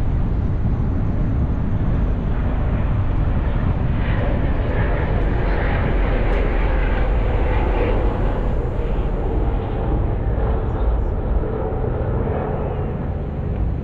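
Steady road and wind noise of a car driving, with a constant low rumble.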